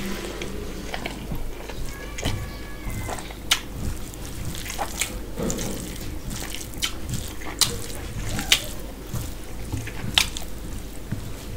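Bare fingers mixing basmati rice with mutton curry on a steel plate: wet squishing and squelching of rice and gravy, with a few sharp clicks scattered through.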